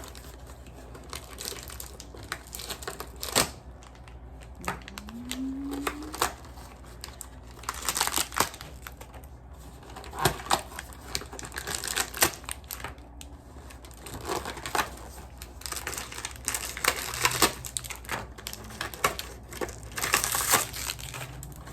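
Toy packaging being opened by hand: plastic wrappers crinkling and rustling in irregular bursts, with sharp clicks and taps between them.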